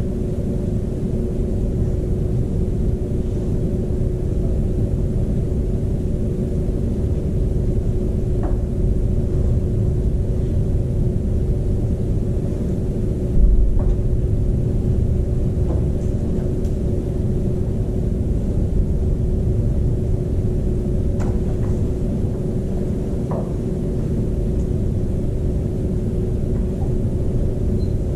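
Steady room rumble with a constant hum, a few faint ticks, and one short thump about halfway through.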